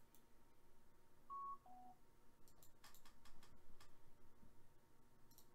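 Quiet room with a short two-note electronic beep, the second note lower, about a second and a half in, then a quick run of computer mouse clicks.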